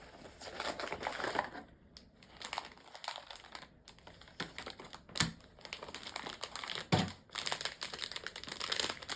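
Blind-box packaging crinkling and rustling as it is handled and opened by hand, with many small crackles and two sharper knocks about five and seven seconds in.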